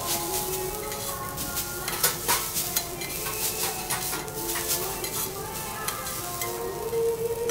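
Garlic fried rice sizzling on a teppanyaki steel griddle as two metal spatulas chop, scrape and turn it. Repeated sharp clicks and scrapes of steel on the hot plate sound over a steady frying hiss.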